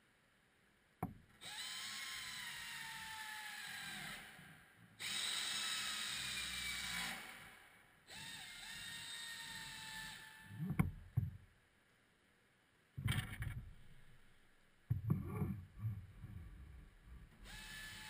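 Pneumatic air ratchet running in three runs of a few seconds each, driving in splash-shield fasteners, its whine slowly falling in pitch during each run. A few short knocks follow, and the ratchet starts again near the end.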